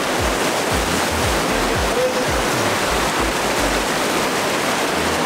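Ocean surf rushing and washing in a steady roar of noise, with background music's low, steady beat underneath.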